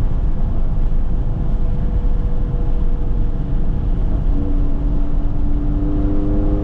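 BMW F80 M3's twin-turbo inline-six and cat-deleted M Performance exhaust heard from inside the cabin, running at an even throttle while cruising, with road noise underneath. About four seconds in, a steady droning tone joins the sound and holds.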